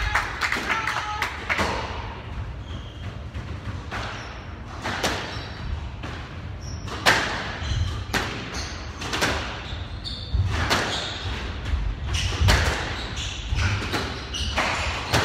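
Squash rally: the ball is struck by rackets and hits the court walls in sharp impacts, starting a few seconds in and coming roughly once a second.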